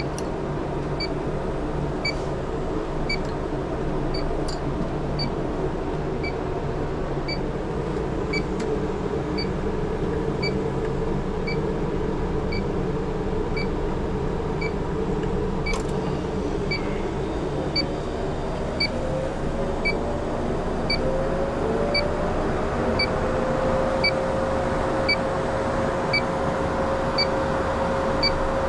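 Electronic refrigerant leak detector beeping at a slow, even rate of about one short high beep a second, the idle rate that means no refrigerant is being picked up. Beneath it runs a steady machinery hum, with a tone that rises in pitch in the second half and then holds steady.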